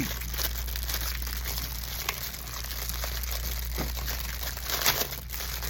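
Crinkling plastic packaging being handled and pulled at, an irregular crackle with a louder crinkle about five seconds in.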